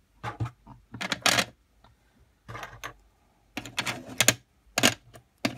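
Small pots of nail powder and flakes clicking and knocking against one another and against a clear plastic box as they are set down in it, in several short clusters of clatter.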